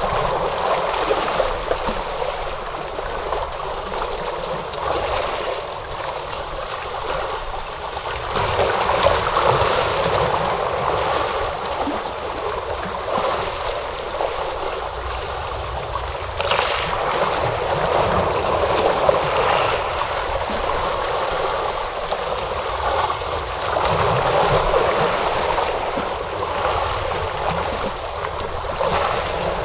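Ocean waves breaking and washing ashore: a continuous rushing surf that swells louder every several seconds as each wave comes in.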